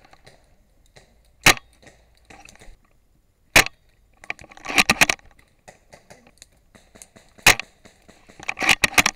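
Airsoft guns firing: three single sharp cracks, a few seconds apart, and two short rapid bursts of several cracks each, about five seconds in and near the end.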